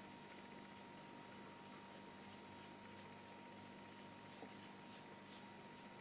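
Faint, quick flicks of a stiff-bristle oil-painting brush, a finger snapping across the bristles to spatter white paint onto the canvas, about two flicks a second. A faint steady hum runs underneath.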